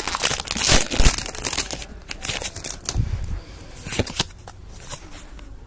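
Foil wrapper of a Pokémon card booster pack crinkling and tearing as it is pulled open by hand. After about two seconds it thins to a few light clicks and rustles as the cards are handled.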